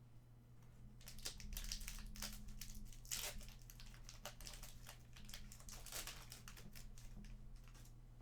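Crinkling of a trading-card pack's wrapper being handled and opened, a dense run of irregular crackles starting about a second in.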